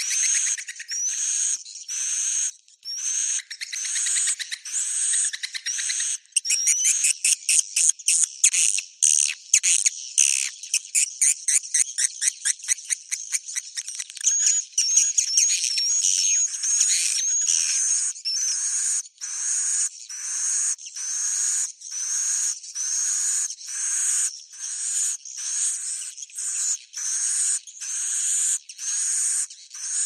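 Swiftlet roosting-call lure recording ('suara inap'): edible-nest swiftlet chirps and twitters repeating about once a second. A stretch of rapid clicking trills comes near the middle. It is the kind of call played in a swiftlet house to make the birds settle and stay.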